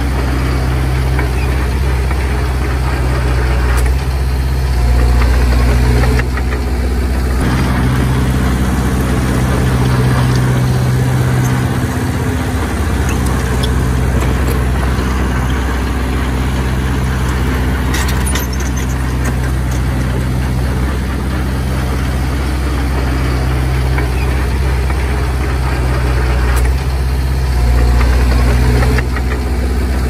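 Heavy diesel engine running steadily, swelling louder briefly about five seconds in and again near the end as the load changes.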